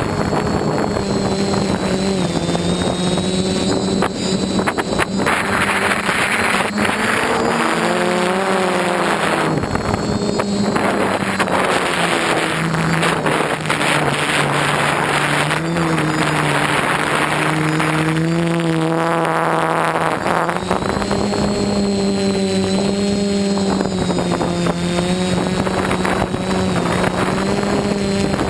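DJI F450 quadcopter's electric motors and propellers whirring steadily. The pitch drops about a third of the way in and climbs back about three quarters through as the throttle changes.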